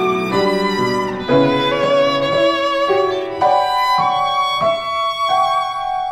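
Violin and piano duet in a slow jazz-style piece: the piano strikes chords under the violin line. Over the last second or two the violin holds one long note.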